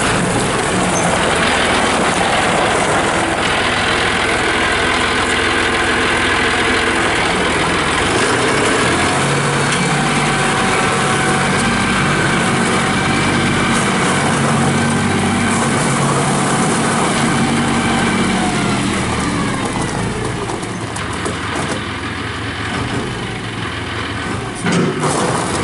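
John Deere 5045D tractor's turbo diesel engine running steadily. Its speed drops about three-quarters of the way through, it runs quieter for a few seconds, and a single knock comes near the end.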